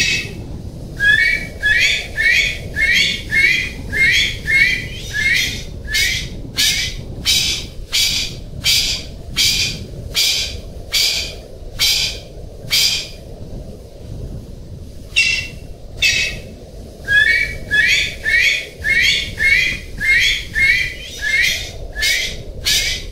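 Golden pheasant calling: a fast series of short, sharp, upward-sliding notes, about two a second, in two bouts with a pause of about two seconds near the middle, over a steady low rumble.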